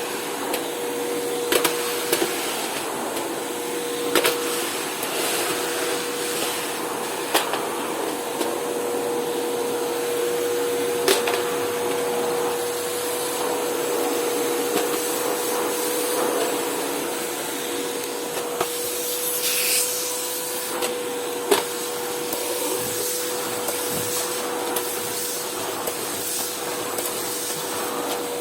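Unbranded FJ-188 600 W bagged vacuum cleaner running steadily, with a constant tone in its motor noise. Occasional sharp clicks and knocks sound over it every few seconds.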